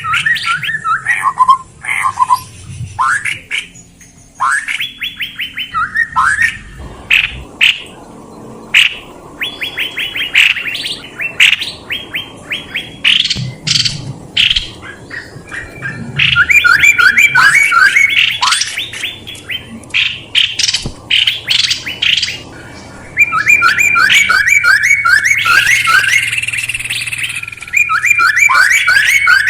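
Songbird calls played as a bird-luring recording: rapid runs of sharp, high chirps, each run lasting a second or a few seconds and repeating after short gaps. A longer, steadier run of repeated notes comes near the end.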